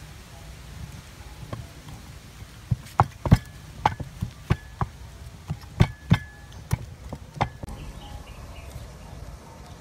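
Wooden pestle knocking in a wooden mortar while mashing a soft mixture: about ten sharp knocks at an uneven pace, starting a few seconds in and stopping shortly before the end.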